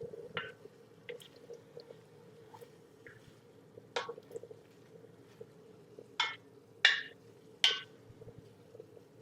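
A pan of vegetables with white wine and herbs bubbling faintly, with scattered small pops and four short louder splashy sounds about four, six, seven and eight seconds in, over a steady low hum.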